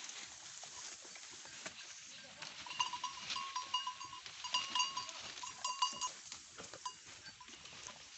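Goats bleating, a run of short high-pitched calls about three to six seconds in.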